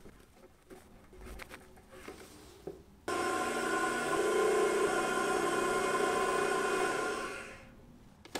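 Milling machine spindle drilling a small hole in an aluminium part: a steady whine that starts abruptly about three seconds in and fades out near the end. Before it, only faint light ticks.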